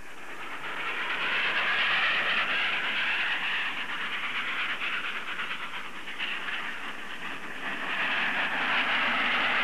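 A train rushing past over a level crossing, its wheels clattering, swelling in about a second in, easing a little in the middle and swelling again near the end. It is heard on an old sound-film soundtrack.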